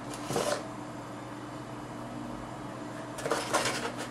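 Cardboard box and foam model parts being handled: a brief rustle and scrape about a third of a second in, a faint steady hum, then a cluster of rustling and scraping near the end.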